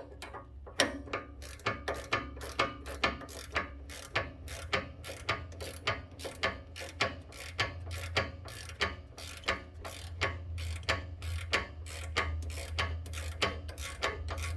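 Ratcheting wrench clicking steadily, about three clicks a second, as it turns a nut on a truck's sway bar end link.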